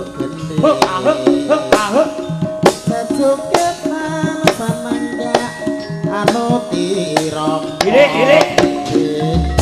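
Javanese gamelan playing tayub dance music: hand-drum (kendang) strokes come thick and fast over the sustained ringing notes of the metallophones, and a deep gong is struck just before the end.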